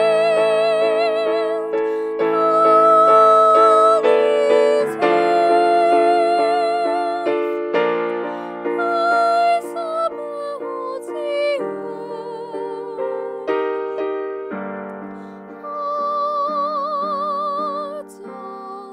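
A female solo voice sings long held notes with vibrato over piano accompaniment.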